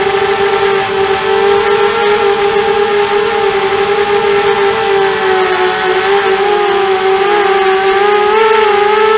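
ZMR250 quadcopter's brushless motors (Dragonfly 2300kv) spinning 5x3 Gemfan props, a loud, steady buzzing whine heard close up from the onboard camera. Its pitch wavers slightly with throttle and rises a little near the end.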